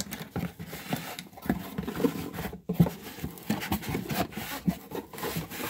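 Cardboard shipping box being opened by hand: the flaps rub and scrape against each other, with irregular soft knocks and crinkles as the cardboard is handled.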